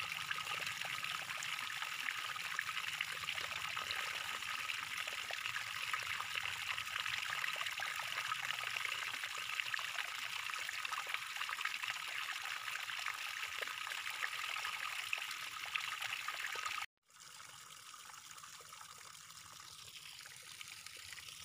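Pot of water with coriander seeds at a rolling boil: a steady bubbling hiss with fine crackles. It cuts off abruptly about three-quarters of the way through, leaving only a faint hiss.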